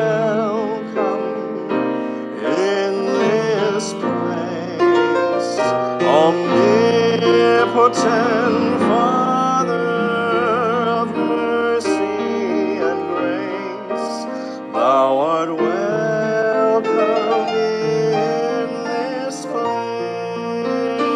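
A grand piano playing a slow hymn-like piece, with a sustained melody line that wavers in vibrato above the chords.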